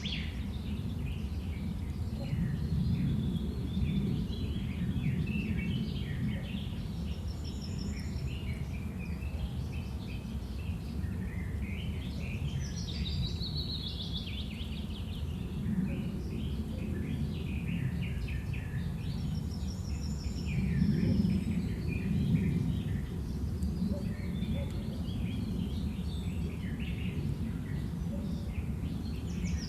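Countryside ambience: a steady low rumble under many small birds chirping and twittering on and off.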